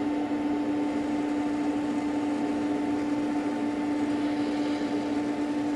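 Car head unit's AM radio tuned to 522 kHz giving steady static hiss with a constant low hum, no station coming through.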